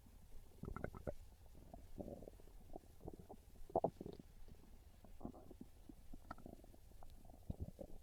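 A hungry, empty stomach growling: a run of irregular gurgles and small bubbly clicks, with the loudest gurgle about halfway through.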